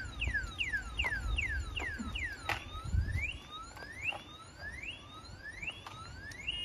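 DYU A5 folding e-bike's anti-theft alarm sounding through its horn, set off by the locked bike being moved. It gives quick falling chirps, about three a second, then after about two seconds switches to slower rising whoops about once a second. A few sharp clicks sound along with it.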